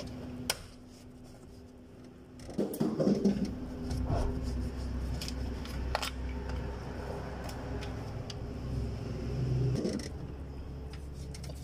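Engine oil being poured from an upended bottle into the oil filler of a Toyota HiAce diesel engine, with a click near the start, irregular bottle and pouring sounds about two and a half seconds in, then a low steady hum.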